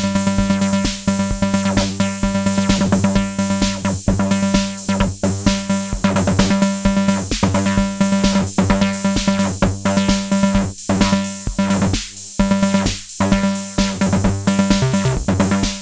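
Erica Synths Bassline analog bass synthesizer playing a sequenced, repeating bass pattern over a drum machine beat.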